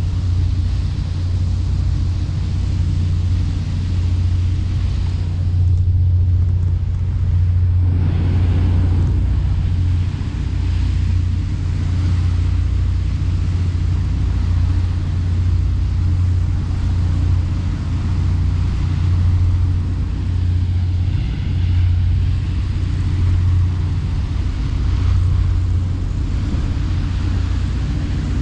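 Boat engine running with a steady low drone, under an even rushing noise.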